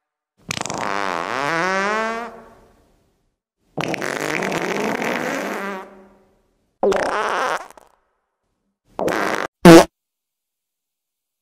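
A run of five fart noises with silences between them. The first is long and dips in pitch before rising again, the second is longer and rougher, and shorter ones follow, ending in a brief, loudest blast near the end.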